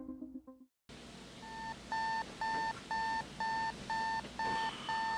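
Electronic alarm beeping in a small room: short beeps of one steady pitch, about two a second, starting about a second and a half in after the music fades out.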